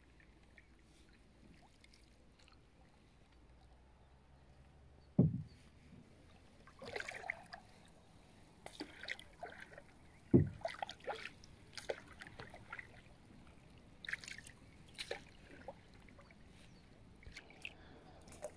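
Kayak paddle strokes dipping and splashing in the water, irregular and starting about a quarter of the way in. Two sharp low knocks stand out, one about five seconds in and a louder one about halfway.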